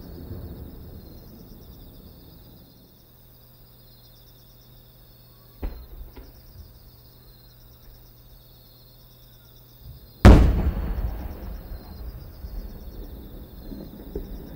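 Aerial firework shell: a sharp launch thump about five and a half seconds in, then about five seconds later the much louder boom of the shell bursting, rumbling and echoing as it dies away. Insects chirp steadily throughout.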